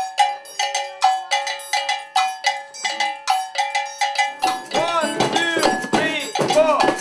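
Percussion music on bell-like struck metal, about three ringing strikes a second in a steady repeating pattern. About halfway through it turns into a denser, louder passage of strikes whose notes bend in pitch.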